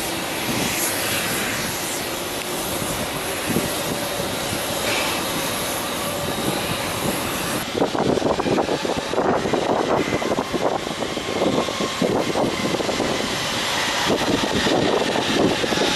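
Boeing 777 jet engines running at low power on the ground, a steady rush with a faint whine. About halfway through the sound changes abruptly and becomes louder and gustier.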